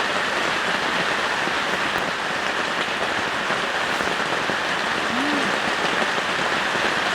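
Heavy downpour: rain falling hard and steady.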